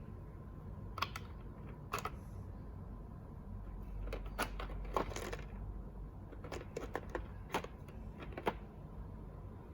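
Plastic keycaps clicking and clattering as they are handled: a couple of single clicks, then an irregular cluster of clicks in the middle and a few more near the end.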